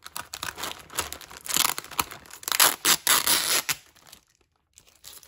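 Clear plastic security bag being ripped open at its seal, with crinkling plastic tearing in bursts that stop about four seconds in.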